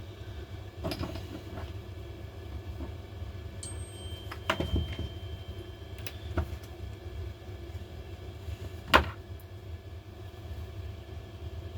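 Parts of a cordless impact driver being worked out of its plastic housing by hand: scattered clicks and knocks, the loudest a sharp knock about nine seconds in, over a steady low hum.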